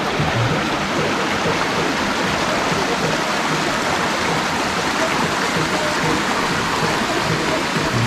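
Shallow rocky river running over stones in small rapids: a steady rush of water.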